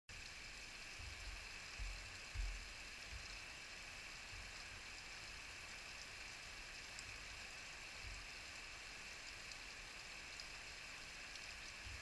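Small waterfall dripping in thin strands off a mossy rock overhang and trickling down a rocky channel: a faint, steady splashing hiss. A few low rumbles come and go, the strongest about two seconds in.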